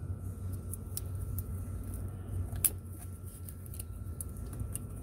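Scattered light clicks and ticks of hands and a small tool working at a wiring connector in an engine bay, with one sharper click about two and a half seconds in, over a steady low hum.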